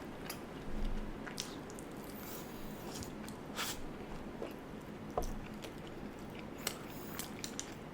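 A person chewing and biting food close to the microphone: wet mouth sounds with scattered short smacks and clicks.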